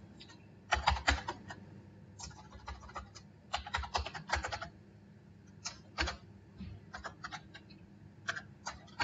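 Computer keyboard typing: a username is keyed in at a login prompt, in short runs of keystrokes with pauses between them.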